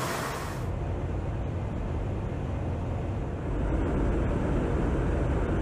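Steady low rumble of jet aircraft in flight during aerial refuelling, the hiss above it dropping away under a second in and the rumble growing louder about three and a half seconds in.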